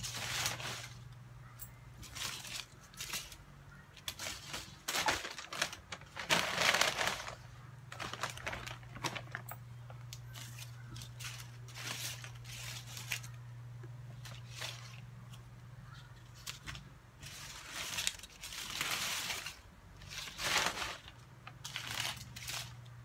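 Paper banknotes rustling and crinkling in repeated short bursts as they are handled and sorted by hand, over a steady low hum.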